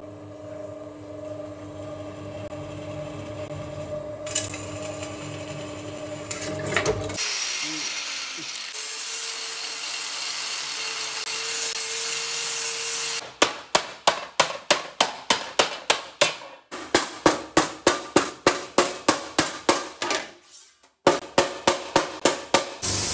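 A bench drill press running and drilling a steel sheet blank, then an angle grinder grinding the sheet's edge with a steady hiss and whine from about a third of the way in. Then, about halfway through, a mallet strikes the steel sheet on a steel table about two to three times a second, with a short pause near the end.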